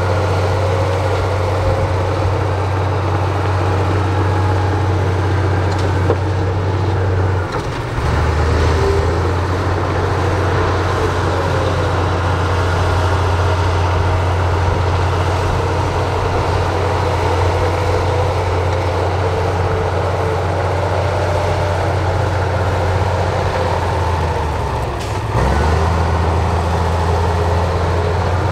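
Heavy diesel engine of earthmoving machinery running steadily, with a faint wavering whine above its deep hum. The engine note dips briefly twice, about seven seconds in and again near the end.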